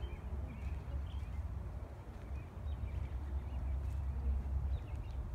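Outdoor field ambience: a steady low wind rumble on the phone microphone, with faint, scattered bird chirps.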